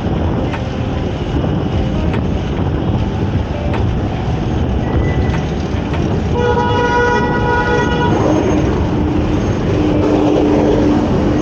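Steady wind and traffic noise from riding a bicycle in city traffic. About six seconds in, a vehicle horn with several tones at once sounds for about a second and a half, followed by a lower steady tone lasting a few seconds.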